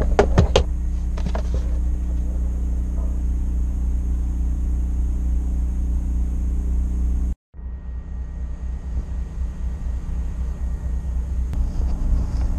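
Steady low engine rumble with a hum, a few sharp clicks just at the start. About seven seconds in it cuts out for an instant and comes back rougher.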